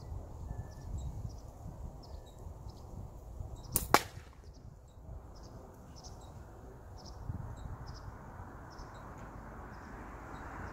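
A slingshot fired once about four seconds in: one sharp snap as the rubber bands are released and the shot flies off. Under it is a steady low rumble, with faint high chirps.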